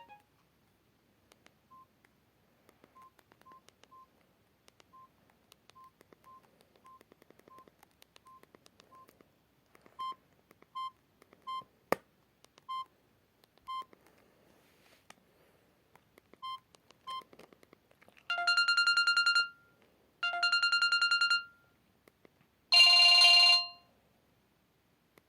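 Samsung GT-E1200M mobile phone beeping as its keys are pressed in short, irregular single beeps while its menu is navigated, with one sharp click. Then come three brief buzzy tones of about a second each, ringtone previews each cut short, the last the loudest.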